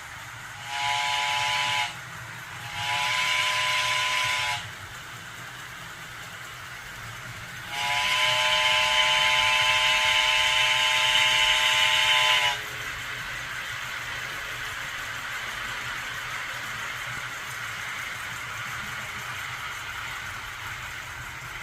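Simulated steam-locomotive whistle from a vintage Tenshodo model-railway sound box: three blasts of a chord of several tones, a short one, a slightly longer one, then a long loudest one of about five seconds, over a steady steam hiss.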